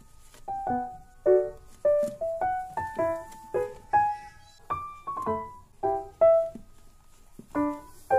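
Background piano music: a gentle melody of single notes and small chords, each struck and left to ring out, about two notes a second.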